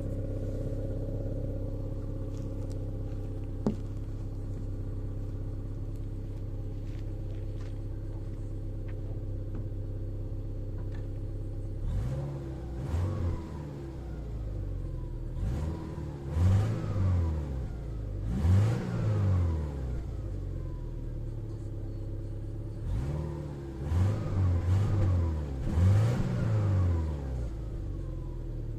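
Subaru Legacy 2.0's flat-four boxer engine on its stock exhaust, idling steadily and then blipped through a series of quick revs, each rising and dropping back to idle, before settling to idle again near the end.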